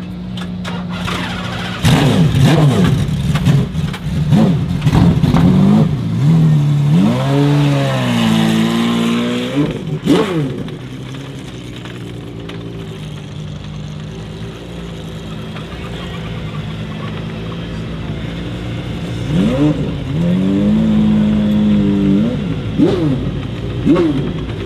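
Supercar engines idling and being blipped in quick revs that sweep up in pitch and drop back, with one rev held high for about two seconds around a third of the way in, then steady idle, then more sharp blips over the last quarter; among them is the Gordon Murray T.50's naturally aspirated Cosworth V12.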